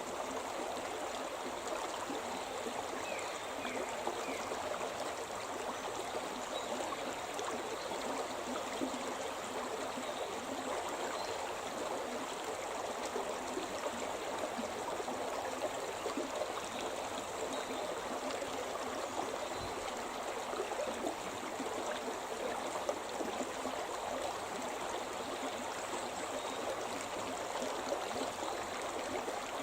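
The Shimna River, a forest mountain river, flowing with a steady rushing babble of water.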